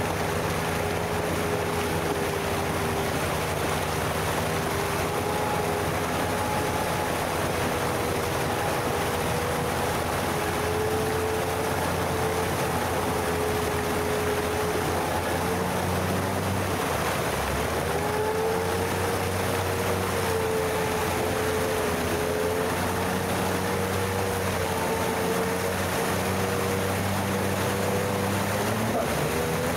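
All-terrain vehicle engine running steadily under load, its whine wavering slightly in pitch as the throttle changes.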